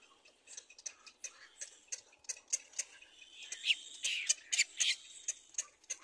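Little black cormorant chick's begging calls: rapid irregular clicks and short raspy squeaks, getting louder and more crowded about halfway through, over a faint steady high-pitched tone.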